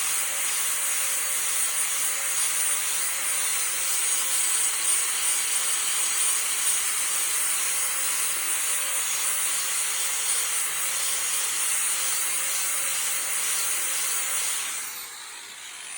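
Angle grinder with a sanding disc grinding the cutting edge of a steel lawn mower blade: a steady harsh hiss over a constant motor whine. It is switched off near the end and spins down.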